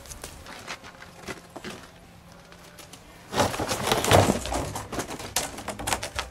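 Plastic trash cans clattering and knocking over as a person falls into them, a dense run of knocks and scrapes starting about three seconds in after a quiet stretch.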